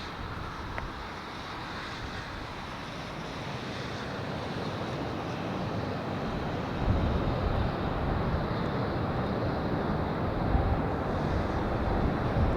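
Boeing 787 jet engines on approach: a broad rushing noise that grows slowly louder, with wind buffeting the microphone from about halfway through.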